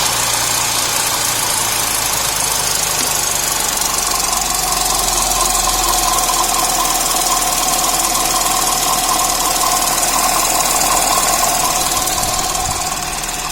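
The 2010 Audi S4's 3.0-litre supercharged V6 idling with a light rattle from the front of the engine, which the mechanic traces to a failing water pump. A steady whine comes in about four seconds in.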